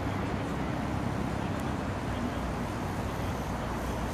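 Steady low drone of a small river ferry's engine as it motors past, over a constant outdoor noise.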